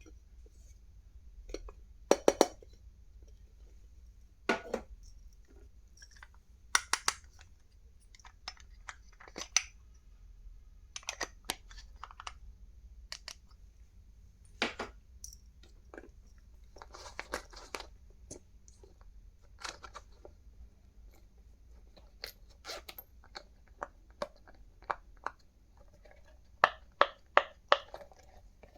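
Stationery and its packaging being handled close up: irregular sharp clicks and taps of plastic pieces, with a short patch of rustling partway through and a quick run of four clicks near the end.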